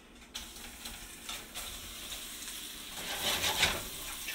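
Flour-coated meatballs sizzling as they are slid into hot oil in a stainless-steel pot, the sizzle starting about a third of a second in and growing louder from about three seconds in as more meatballs go in.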